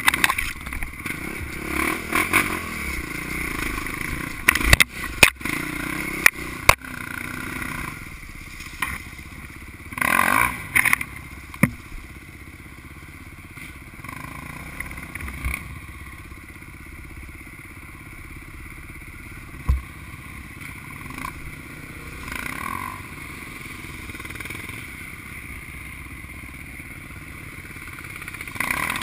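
KTM enduro motorcycle engine running on the trail, with a louder rev about ten seconds in and steadier low running afterwards. Sharp knocks and clatter come mostly in the first seven seconds.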